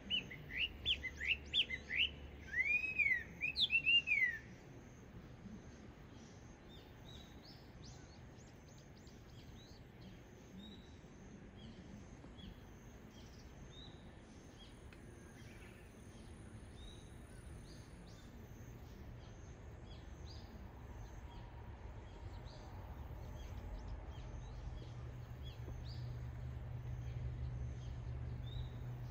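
A Chinese hwamei sings a quick run of loud, clear whistled notes that swoop up and down, then stops about four and a half seconds in. After that only faint chirps of other birds are heard over a low rumble that grows louder near the end.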